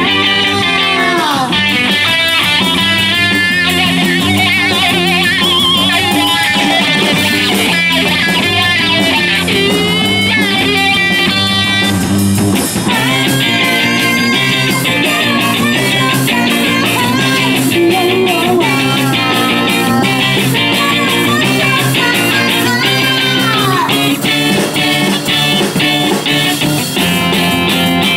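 Live rock band playing loudly: electric guitars over a drum kit, with a lead guitar line that bends its notes up and down.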